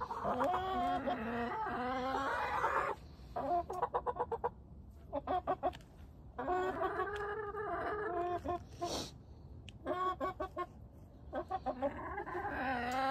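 Chickens calling: three long drawn-out calls, the first about three seconds long, with bursts of quick short clucks in between.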